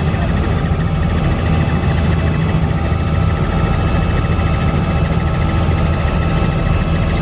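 Helicopter in flight heard from inside the cabin: the engine and rotor make a loud, steady drone.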